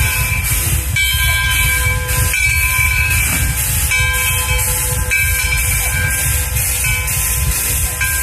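Steam-hauled passenger train rolling along, heard from an open gondola car: a steady low rumble of wheels and running gear with a hiss over it. Faint ringing tones come and go every second or so.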